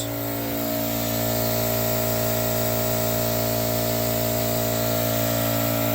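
Electric air compressor running steadily, a constant motor hum, while it pushes air and antifreeze through the pressure washer's supply line and pump.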